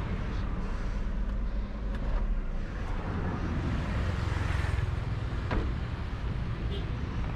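Chevrolet Cruze's diesel engine running with a steady low rumble, with a single sharp click about five and a half seconds in.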